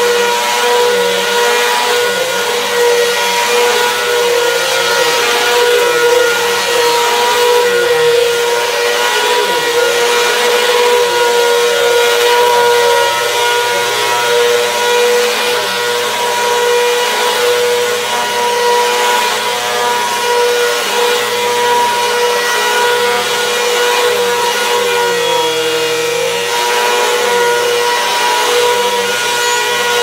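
Bagless upright vacuum cleaner running steadily while vacuuming a rug, its motor giving a loud, even whine. About twenty-five seconds in, its pitch sags briefly and recovers.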